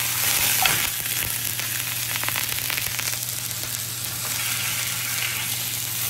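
A lamb shoulder blade chop sizzling as it sears in hot tallow in a cast iron skillet, with a few light clicks and scrapes of tongs moving the chop in the pan during the first half.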